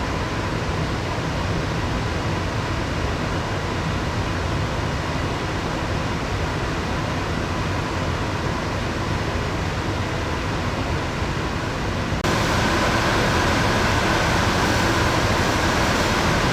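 Steady hum and hiss of a moored ship's ventilation and onboard machinery, with a faint steady whine. About twelve seconds in it cuts abruptly to a slightly louder hiss with a higher-pitched whine.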